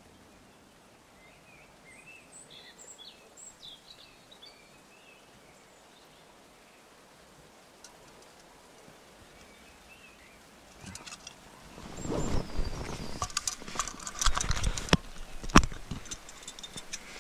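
Faint, scattered bird calls over quiet outdoor ambience. About eleven seconds in, loud irregular metallic clinks and rattles begin: a metal cooking pot and its lid being handled.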